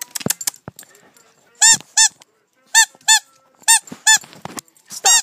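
A rubber squeaky toy being squeezed and released over and over, the squeaks coming in pairs: three pairs about a second apart, then one more squeak near the end, all at the same pitch. A few short knocks of handling come in the first second.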